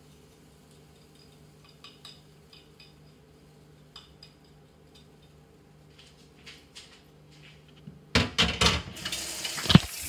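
A kitchen utensil clinking lightly against a bowl, then about eight seconds in a loud run of clattering knocks against the pan as the last of the pancake batter is scraped in, followed by a steady hiss of the batter starting to fry. A low steady hum runs underneath.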